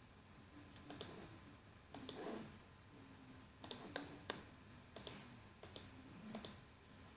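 Faint clicks of a computer mouse, about eight at uneven spacing, a few in quick succession, as edges are picked one after another.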